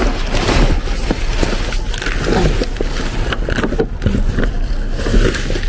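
Plastic rubbish bags, plastic film and cardboard rustling and crinkling as gloved hands rummage through a full waste bin, with irregular crackles and knocks over a steady low rumble.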